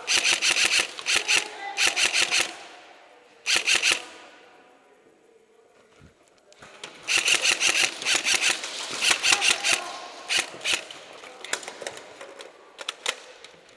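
Airsoft electric guns firing rapid full-auto bursts: several bursts of fast clicking shots with pauses between them, and a few single shots near the end. The shots echo in a room.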